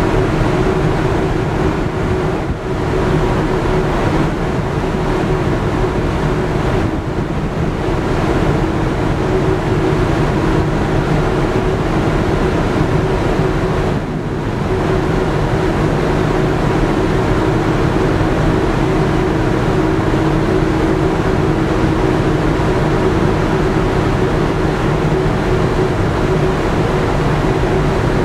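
Stena Superfast VIII ferry under way, heard from the open deck: a steady machinery hum from the ship with water rushing along the hull and wind buffeting the microphone.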